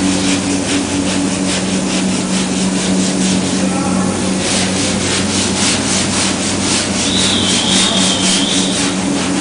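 Sanding on a welded sheet-metal car fender, a steady rhythm of scraping strokes about four a second over a constant low hum. A brief higher whine joins in about seven seconds in.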